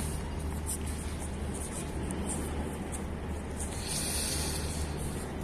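Steady outdoor background noise: a constant low hum under a light hiss, with a brief louder hiss about four seconds in.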